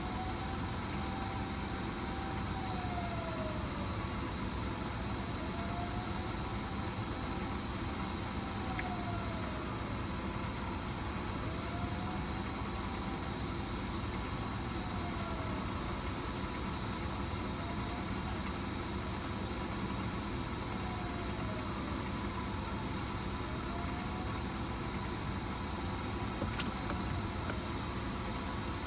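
Fire engine siren wailing faintly in slow rise-hold-fall cycles, about every five or six seconds, over the steady low hum of engines idling in stopped traffic.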